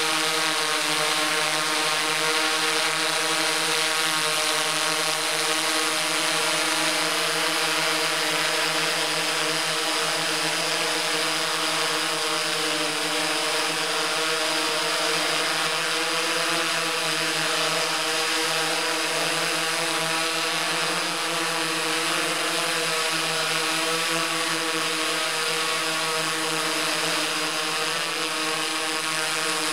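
Quadcopter drone's motors and propellers whirring steadily, a constant multi-toned hum over a hiss, heard through the drone's own onboard camera.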